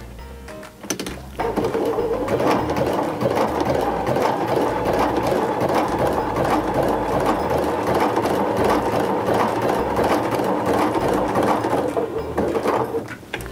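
Baby Lock Sashiko sewing machine running steadily as it sews long, closely spaced running stitches, a dense even run of needle strokes. It starts about a second in and stops near the end.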